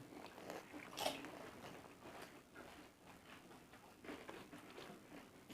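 Faint chewing and crunching of pani puri as the crisp puri shells are bitten, with a few soft cracks, the clearest about a second in.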